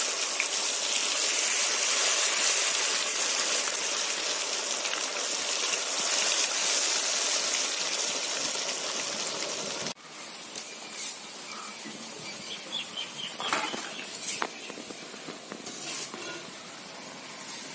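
Banana stem pakodas deep-frying in a kadai of hot oil: a loud, steady sizzle that cuts off suddenly about ten seconds in. After that it is much quieter, with a few light clicks and taps.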